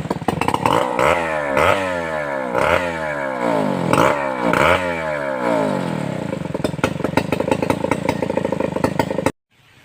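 Stihl 070 two-stroke chainsaw running at high revs, its pitch repeatedly dipping and climbing back about once a second, then running steadier with a rattle, until the sound cuts off abruptly near the end.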